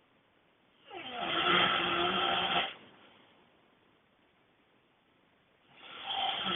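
A person snoring loudly: one long pitched snore starting about a second in and lasting nearly two seconds, then a quiet pause, and a second snore beginning near the end.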